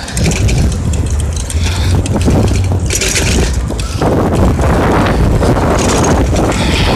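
Vehicle and road noise moving through traffic, with wind buffeting the microphone: a steady low rumble with gusts of hiss about three seconds in and again near the end. No siren wail is heard.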